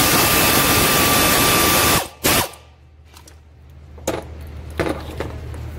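Handheld power drill run for about two seconds and then blipped once briefly, driving out a bolt on the engine's cylinder head. A couple of light knocks follow.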